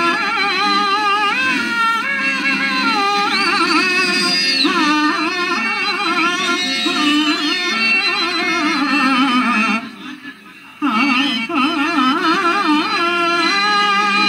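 A man singing a Telugu stage-play verse (padyam) in long, drawn-out melodic phrases with heavy vibrato and ornaments, over steady instrumental accompaniment. The singing drops off briefly about ten seconds in, then resumes.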